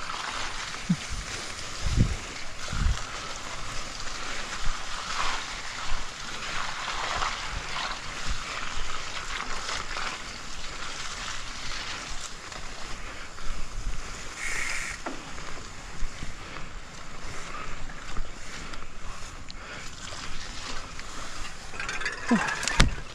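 Mountain bike riding over a wet, grassy mud track: a steady rush of tyres through grass and mud, with scattered knocks from bumps and wind on the microphone.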